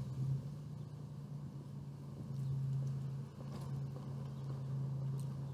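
Steady low engine hum, like a motor vehicle idling, with a few faint clicks.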